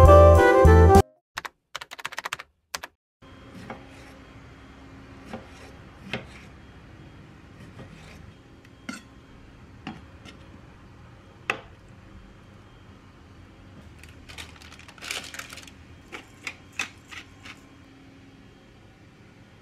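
Background music cuts off about a second in; then a kitchen knife cuts tomatoes into wedges, its blade tapping on a wooden plate in irregular sharp clicks, with a closer cluster of taps near the end.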